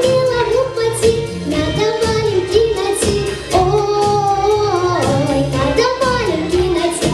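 A girl singing a song over a backing track with a regular beat. She holds one long note in the middle.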